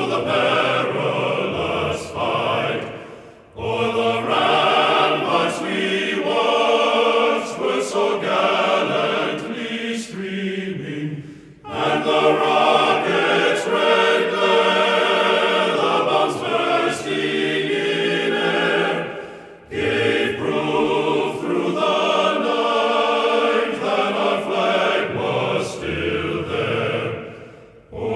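Background music of a choir singing in long sustained phrases, each lasting about eight seconds and separated by a brief dip.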